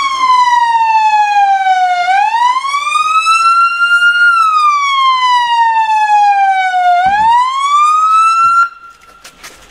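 Police car siren wailing, its pitch sliding slowly down and then up again, twice over. It cuts off suddenly near the end.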